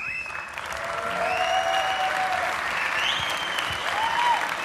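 Theatre audience applauding, with a few whistles over the clapping. The applause starts suddenly as the name is spoken and keeps up.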